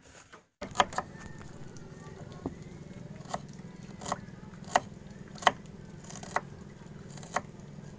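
A knife chopping red onion on a wooden board: sharp single taps, about one a second, over a steady low hum.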